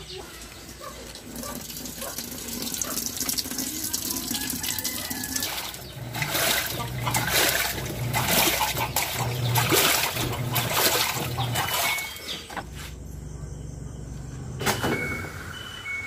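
LG TurboDrum top-load washing machine agitating water in its tub on the wash cycle, its wash motor running again after a faulty motor capacitor was replaced: water swishing and sloshing, with the motor pulsing a little faster than once a second through the middle. Short electronic beeps from the control panel near the end.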